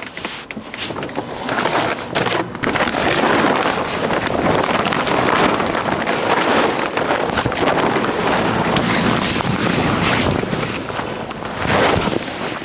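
Steady rushing outdoor noise that swells and eases in level.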